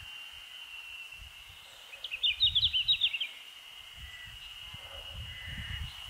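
Male red-flanked bluetail singing: one short warbling phrase of quick high notes about two seconds in, a little over a second long, over a steady high hum.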